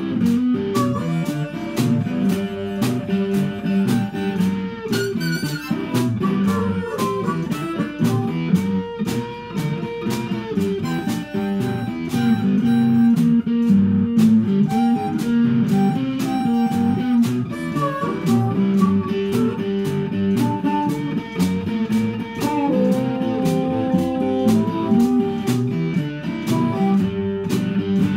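Live blues jam of electric guitar, harmonica and drums improvising over a I-IV-V progression in G, with steady drum strikes under held harmonica and guitar lines; the band stops together near the end.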